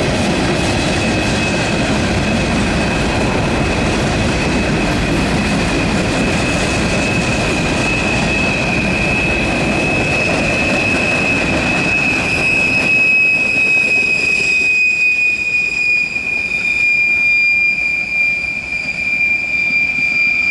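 Railroad cars rolling past with a steady high-pitched wheel squeal. About two-thirds of the way through, the low rumble of the wheels drops away suddenly while the squeal carries on, its pitch sagging slightly.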